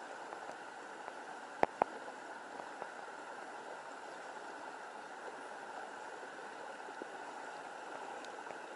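Steady rush of flowing stream water, with two sharp clicks close together about one and a half seconds in.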